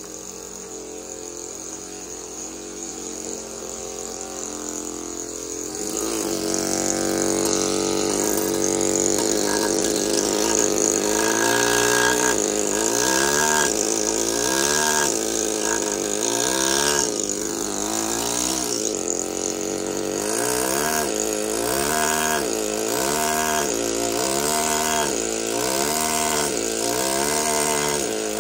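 Pneumatic carving hammer driving a chisel into marble, running with a steady pitched hum. It is quieter at first and gets louder about six seconds in. Later its pitch rises and falls regularly, about once a second.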